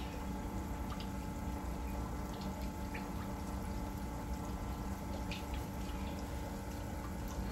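Pork chop deep-frying in hot oil in an electric deep fryer: a steady bubbling sizzle with a few small pops scattered through it.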